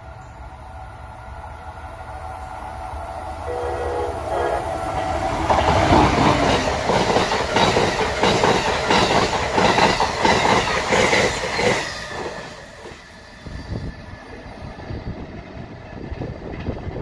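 Amtrak passenger train of stainless-steel coaches passing at speed, with a rhythmic clatter of wheels over the rail joints. It builds as the train approaches, with a short horn sound about four seconds in. It is loudest while the cars rush by, then fades quickly as the train moves off.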